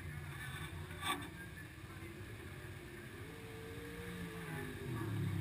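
Low, steady engine rumble from motors running around the pits. A short clatter comes about a second in, and a faint engine note rises and falls near the middle.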